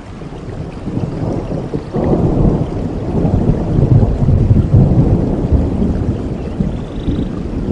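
Thunder rolling over steady rain. A low rumble swells suddenly about two seconds in, is loudest around the middle, then slowly eases off.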